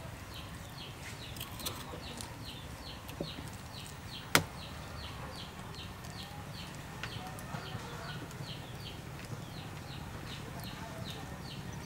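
A knife slicing raw chicken breast on a wooden chopping board, with one sharp knock about four seconds in. Under it runs a steady series of short high chirps, about three a second.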